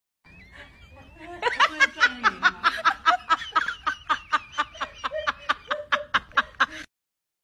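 A person laughing hard in a rapid run of laughs, about four a second. It starts faint, grows loud after about a second and a half, then cuts off suddenly.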